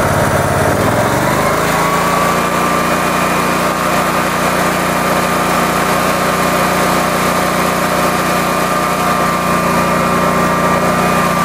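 Generac GP15000E generator's V-twin engine running on propane through a gas-to-propane conversion kit. About a second in its speed rises, then it runs steadily.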